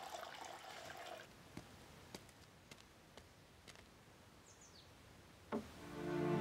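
Water poured into a porcelain bowl, trickling and fading out in about the first second, followed by a few faint drips. Near the end there is a soft knock, then music fades in.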